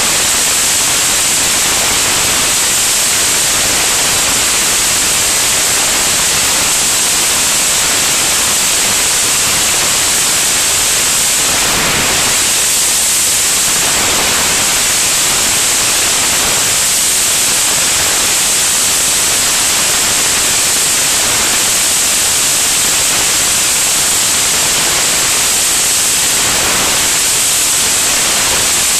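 Loud, steady rush of wind over a camera mounted under a small airplane's wing in flight: an even hiss, brightest in the high range, with no engine note standing out. It swells briefly about twelve seconds in and again near the end.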